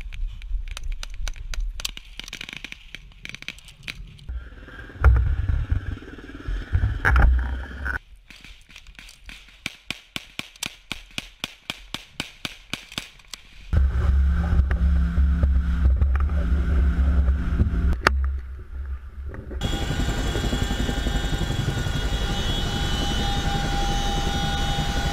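Footsteps crunching on sand and gear rattling as troops move on foot, with two loud thumps and a stretch of evenly spaced steps, then a loud low rumble. From about 20 seconds in, the steady engine and rotor noise of a Chinook helicopter heard from inside its cabin.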